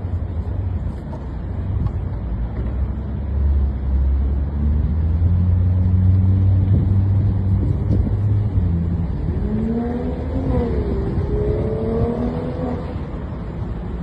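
A motor running with a steady low drone; from about nine seconds in its note rises and falls for a few seconds.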